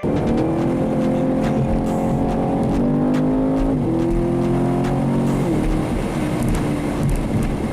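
Chevrolet Camaro SS's 6.2-litre V8 engine under acceleration, its pitch climbing and then dropping twice, about four and five and a half seconds in, as it shifts up through the gears.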